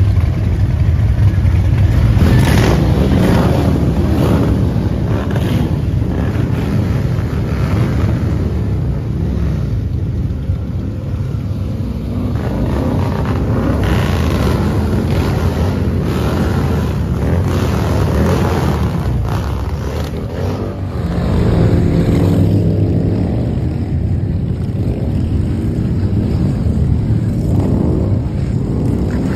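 A group of Harley-Davidson touring motorcycles, V-twin engines, running in a deep steady rumble as they ride off one after another, with the sound swelling now and then as bikes rev and pull away.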